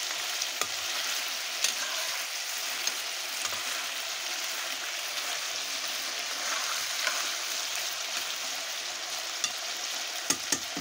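Buffalo meat curry sizzling in a steel karahi and stirred with a metal spoon, a steady frying hiss with scattered sharp clicks, several close together near the end.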